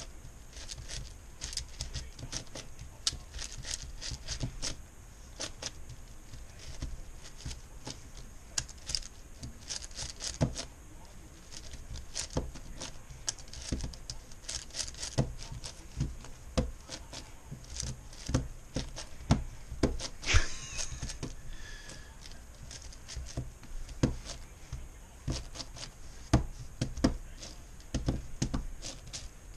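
A MoYu Meilong 10x10x10 speed cube being turned one-handed: quick, irregular plastic clicks and clacks of its layers turning, several a second.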